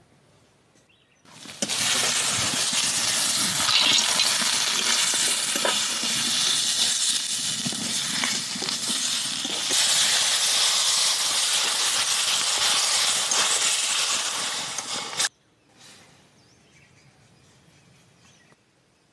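Masala, tomatoes and potatoes sizzling loudly in a hot kadhai with water being poured in, a steady hiss that starts abruptly and cuts off suddenly about fifteen seconds in.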